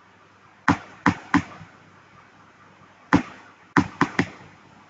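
Seven sharp knocks on a small transformer as its varnished E-I core is worked loose: a quick group of three about a second in, then a single knock and a fast group of three near the end.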